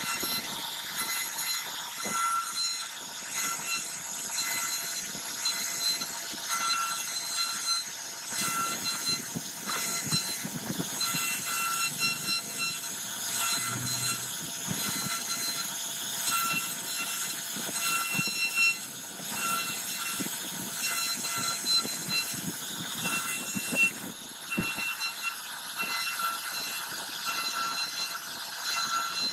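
CNC router spindle running at high speed while its bit cuts into wood, a continuous high-pitched whine with tones that pulse on and off as the cutter moves through the carving.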